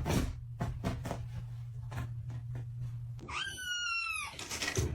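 A cat gives one long, high meow that falls slightly in pitch, about three seconds in. Before it there is a low steady hum with scattered light clicks.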